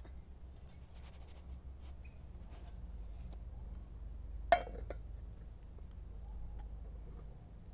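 Low steady rumble with scattered faint clicks, and one sharp click about four and a half seconds in, followed closely by a smaller one.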